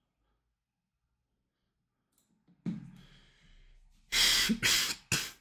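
A person's breath sounds: a sharp exhale about two and a half seconds in, then three short, loud breathy bursts in quick succession near the end.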